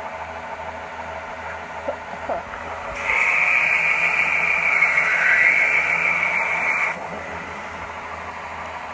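Grinder grinding a small steel part: a loud, high-pitched grinding starts about three seconds in, holds for about four seconds and stops abruptly.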